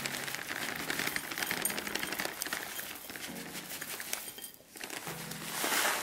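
Dry muesli with raisins and flaked almonds poured from a plastic packet into a ceramic bowl: a dense patter of small pieces landing, with the packet crinkling. The pouring eases about four and a half seconds in and picks up again near the end.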